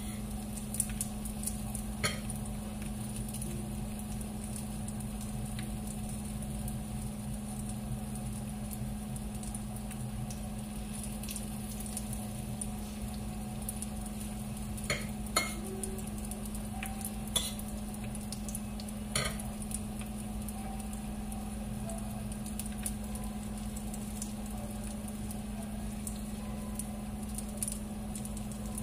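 Dumplings frying in oil in a nonstick pan, a steady sizzle over a low hum. A handful of sharp clicks of plates and utensils, the loudest in the middle stretch.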